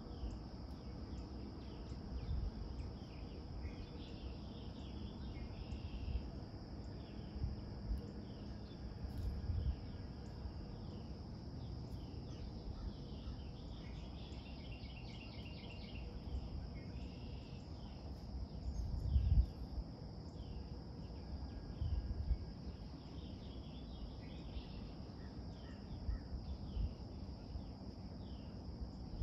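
Steady high insect drone with scattered bird chirps over it and a short rapid trill about halfway through. Brief low rumbles on the microphone come now and then, the loudest a little after halfway.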